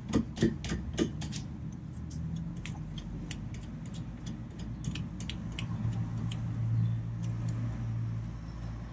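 Metal clicks and ticks as a new outer tie rod end is spun by hand onto the threaded inner tie rod. A quick run of about four clicks a second comes first, then lighter scattered ticks, over a low steady hum.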